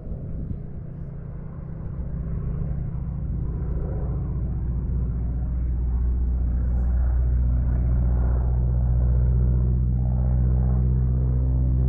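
Engine of a radio-controlled scale Boeing Stearman biplane droning at a steady pitch, getting louder as the model comes closer.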